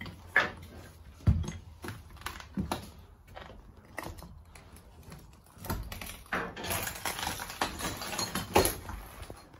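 Irregular knocks and clicks, then a longer stretch of dense scraping and rustling with clatter in it from a little past halfway until just before the end.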